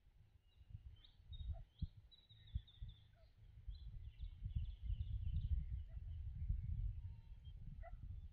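Small birds chirping in quick high twitters over a low rumble of wind on the microphone, the rumble growing louder in the second half.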